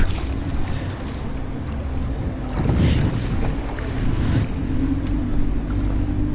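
Wind buffeting the microphone with a steady low rumble. About three seconds in there is a brief brushing noise, and a faint low hum sets in a little past halfway.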